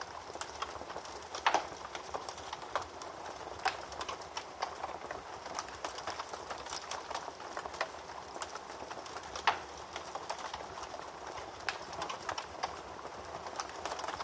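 Wood fire in a fireplace crackling, with a steady hiss of burning and irregular sharp pops, two louder pops about a second and a half in and near ten seconds in.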